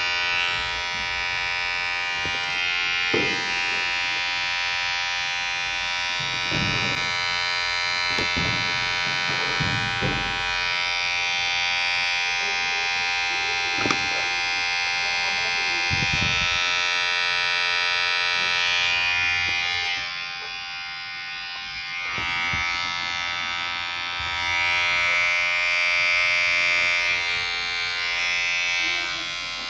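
Electric hair clipper running with a steady, high buzz. Its tone shifts briefly several times in the first half, and it runs quieter for a couple of seconds about two-thirds of the way through.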